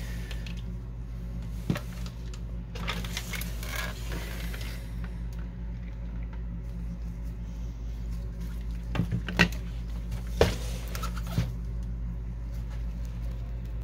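Plastic and metal parts of a Canon Pixma MP560 inkjet printer being handled during disassembly: a click, then a scraping shuffle a few seconds in, then several sharp clicks and knocks later on, over a steady low hum.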